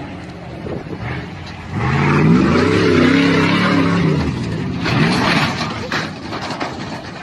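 Pickup truck engine revving under load off-road. Its pitch climbs and drops repeatedly and is loudest from about two to four seconds in, with another rising rev about five seconds in.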